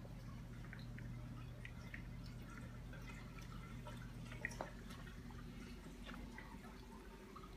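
Faint dripping and trickling of reef aquarium water over a low hum, with a couple of slightly louder clicks about halfway through.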